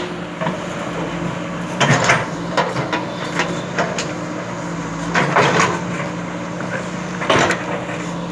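JCB backhoe loader's diesel engine running steadily, with a series of sharp knocks and scrapes from the machine at work.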